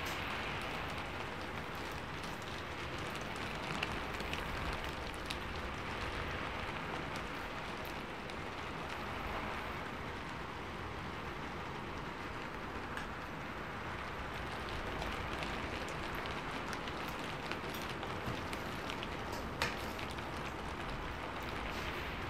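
Heavy rain falling steadily, a constant hiss, with a few faint clicks of a spoon against a plate.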